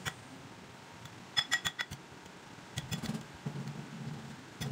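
A ladle mashing steamed sweet potato in a ceramic bowl, clinking against the bowl: a quick run of clinks about a second and a half in and a few more later, with softer mashing sounds between.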